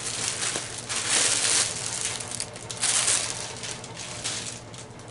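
Clear plastic packaging bag crinkling in irregular bursts as a microfiber towel is pulled out of it.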